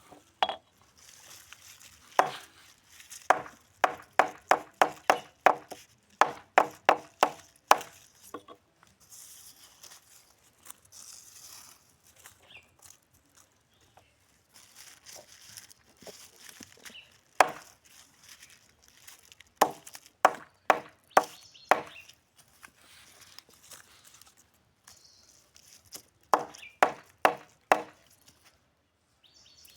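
Knife chopping lemongrass on a board: runs of sharp chops, about two to three a second, separated by pauses.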